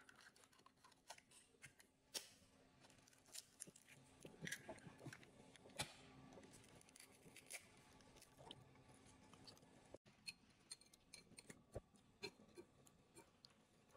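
Faint, irregular clicks and taps of a metal spoon and then a wire whisk against a ceramic bowl as eggs are stirred into a runny mixture.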